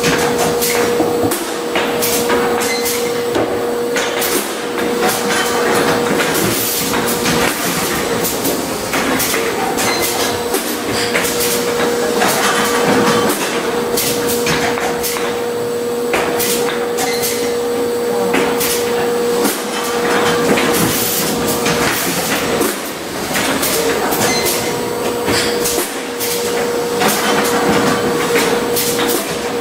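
Schäfer & Flottmann packaging machine running: a steady mechanical hum with a constant mid-pitched tone, broken by frequent sharp clacks and knocks of its moving parts as it cycles.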